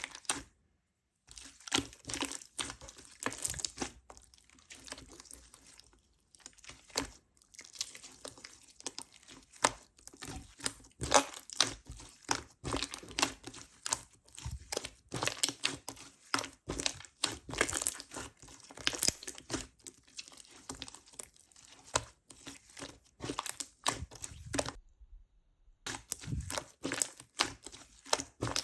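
Slime being squished, stretched and poked by hand, giving a dense run of irregular sharp clicks, crackles and pops, with two brief silent breaks.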